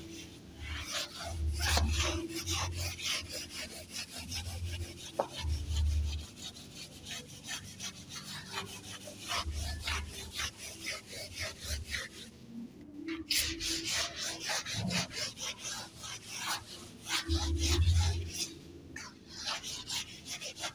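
Chalkboard eraser wiping across a chalkboard in quick repeated scrubbing strokes, with a few dull thuds against the board and a brief pause about two-thirds of the way through.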